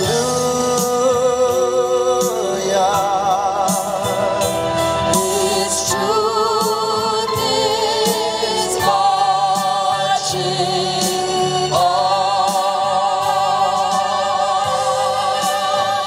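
A vocal trio of two women and a man singing in close harmony, moving through long held chords with vibrato.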